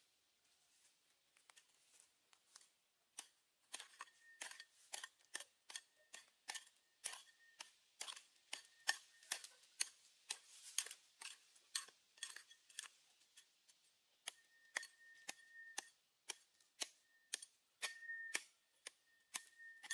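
Small short-handled hoe chopping into dry soil, a sharp strike about two or three times a second, starting about three seconds in.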